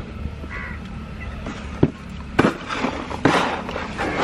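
A kitten gives one short, faint mew, then a run of sharp cracks and crackling noise, loudest in the second half.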